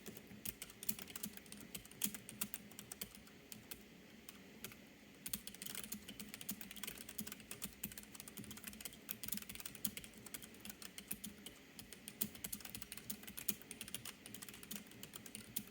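Typing on a Keychron K3 low-profile keyboard with red optical switches: a fast, nice and quiet run of soft keystroke clicks. The typing gets denser about five seconds in.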